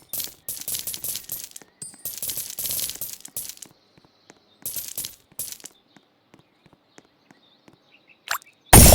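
Small hard objects clicking, clinking and rattling in quick bursts, then sparse light clicks, with a loud sudden clatter near the end.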